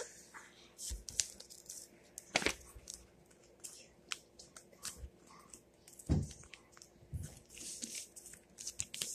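A sheet of printer paper being folded and creased by hand on a wooden tabletop: scattered rustles, crinkles and short scrapes, with a few soft knocks against the table.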